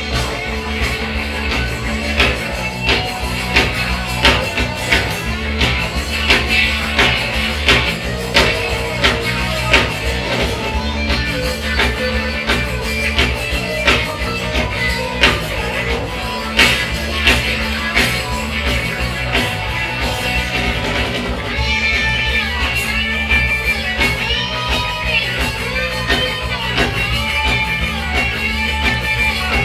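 Live rock band playing an instrumental break: electric guitars over bass and a steady drum beat, with no singing. About two-thirds of the way in, held guitar notes in the upper range come forward.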